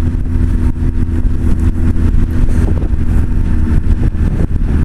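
Honda CB1300's inline-four engine running steadily at a light cruise, with wind buffeting and flapping on the helmet-camera microphone.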